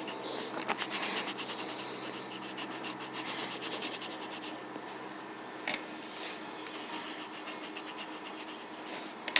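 Pink colouring pencil scribbling on paper in fast back-and-forth strokes, a dry scratchy rubbing as the hat of a drawing is shaded in.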